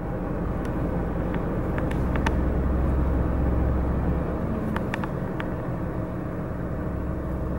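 Steady low rumble of a car heard from inside its cabin, with a few faint ticks.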